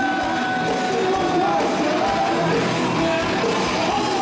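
Live rock band playing through the PA while the lead singer sings long held notes into his microphone.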